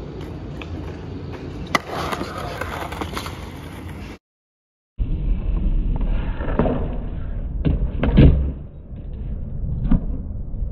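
Skateboard wheels rolling on concrete, first around a skatepark bowl, then, after a break of silence just under a second long, on flat ground with several sharp clacks of the board hitting the ground, the loudest about eight seconds in.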